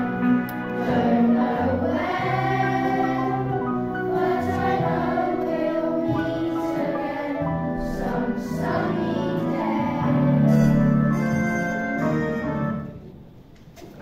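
A group of children singing a song together. The singing ends about a second before the end.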